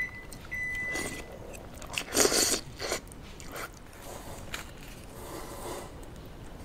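Eating sounds: biting and chewing, with a crusty bread roll torn apart by hand, loudest a little after two seconds in, and light scrapes against the bowl. A short steady high beep sounds near the start.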